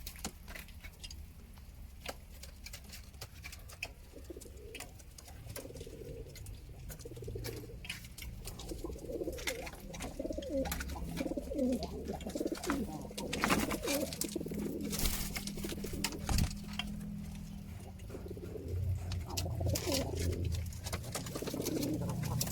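Domestic pigeons cooing, with many overlapping low, wavering coos that build and swell. Scattered sharp clicks and taps run throughout.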